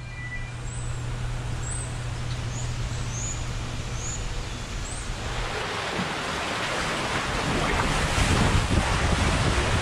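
A steady low hum with repeated short high chirps, then, from about five seconds in, rushing water and a four-person raft sliding through the enclosed tube of a ProSlide TornadoWave water slide, growing louder.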